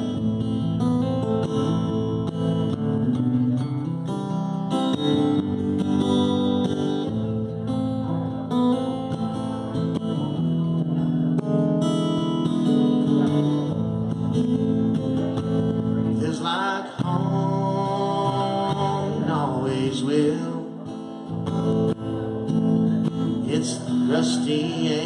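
Electric guitar played live: an instrumental break of strummed and picked chords, with wavering, bending notes in the last several seconds.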